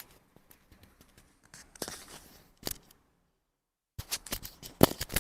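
Rustling and scattered sharp clicks of people moving about and handling clothing, with a quick run of clicks near the end.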